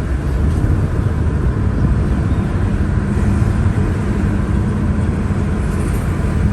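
Steady road and engine noise of a moving car, heard from inside the cabin: a constant low rumble with an even hiss above it.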